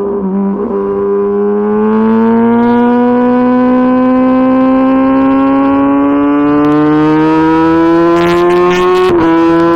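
Hero XPulse motorcycle's single-cylinder engine pulling under acceleration in one gear, its pitch rising slowly and steadily, then dropping suddenly about nine seconds in as it shifts up a gear.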